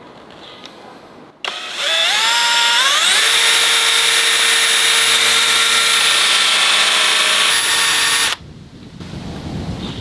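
Electric drill boring a 35 mm concealed-hinge cup hole in a cabinet door. The motor whines up to speed over about a second and a half, runs steadily for about five seconds, then stops abruptly.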